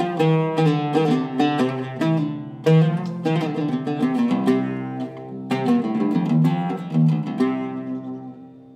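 Zeryab oud with a cedar top and Indian rosewood back, plucked with a plectrum in a quick, flowing tarab-style melody of single ringing notes. The notes thin out and fade away near the end.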